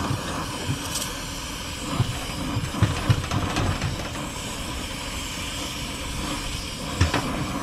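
Brazing torch flame hissing steadily as it heats a brazed copper refrigerant line joint on an air-conditioning compressor to loosen it, with a few brief low bumps.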